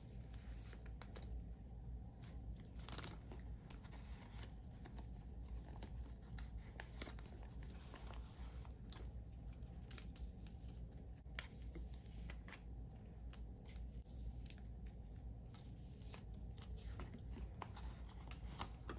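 Faint crinkling and scraping of plastic as sleeved photocards are slid into the clear pockets of a binder page, with scattered soft ticks at an uneven pace.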